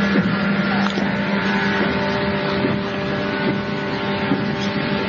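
Steady interior noise inside an electric multiple-unit train's passenger car, recorded on cassette tape: a constant low hum under an even rushing noise, with faint light knocks here and there.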